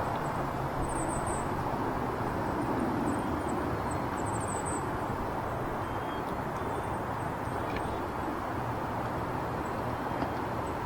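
Steady rush of traffic on a nearby highway, with faint, very high-pitched bird calls a few times.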